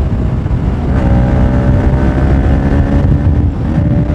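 Bajaj Pulsar RS 200 single-cylinder engine revving hard under full-throttle acceleration through the gears. The engine note breaks about a second in, then climbs steadily, with a short dip near the end, over wind rushing on the microphone.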